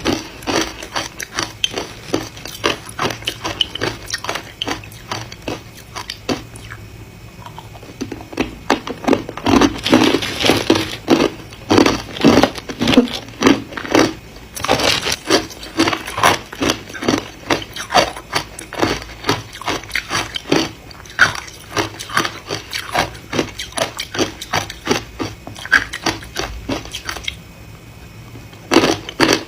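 Ice being bitten and chewed: rapid, irregular crunches, several a second, broken by a couple of quieter pauses.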